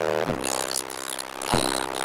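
Deep bass tones played through a car audio system's competition (SPL) subwoofers, with a low drone that drops sharply in pitch twice.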